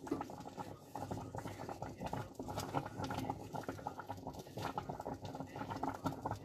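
Wooden spoon stirring rice pudding in a stainless-steel pot, scraping the bottom with a rapid, irregular scratching and clicking as the milky rice simmers.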